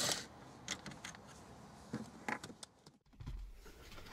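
A cordless screwdriver's whir cuts off at the very start. Scattered light clicks and taps follow, from hands working the radio's Phillips mounting screws and plastic dash trim. About three seconds in, a low hum sets in under soft handling sounds.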